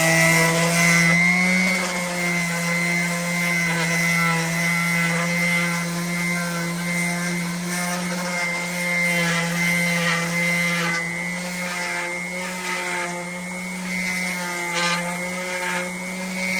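Bauer 2.8 amp random orbital palm sander running steadily while sanding with 150-grit paper: an even motor hum with a higher whine, its level dipping slightly now and then.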